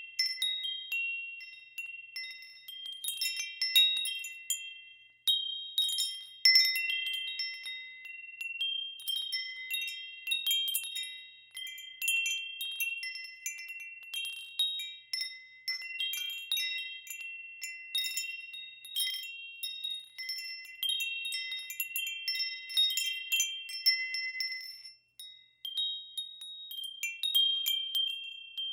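Metal-tube wind chimes ringing, struck at irregular moments so that a few high, clear notes overlap and fade away between strikes.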